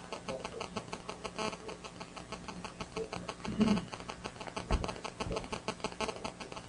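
Faint, distant speech from an audience member asking a question away from the microphone, over a rapid, steady crackling.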